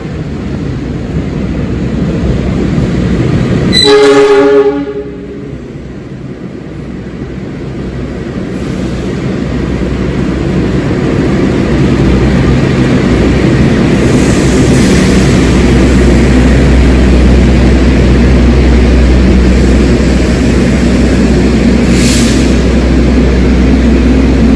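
A train horn sounds once, a chord lasting about a second, about four seconds in. Under it, a train's running rumble grows louder over the next several seconds and then runs steady.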